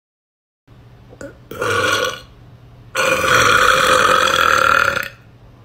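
A woman burping: a short burp, then about a second later a long, loud burp lasting about two seconds.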